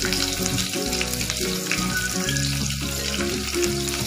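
Sliced onions and green chillies sizzling as they fry in hot oil with whole spices in an aluminium pressure cooker: a steady hiss.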